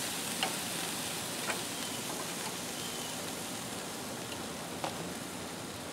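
Rack of pork ribs sizzling on a hot grill grate just after being turned over: a steady hiss with a few sharp pops of fat.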